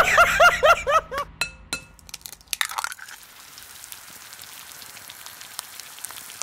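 Intro sound effects. First a fast warbling chirp repeats about five times a second, then it stops about a second in. A few sharp cracks and clicks like an eggshell breaking follow, then a faint steady sizzle like an egg frying.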